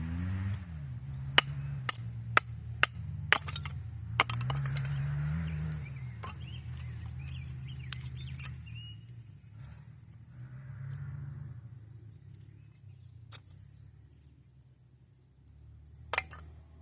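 A small engine revving up and down, off at a distance: an off-road vehicle such as a dirt bike or quad. Over it come a run of sharp knocks, about two a second in the first four seconds, and another double knock near the end.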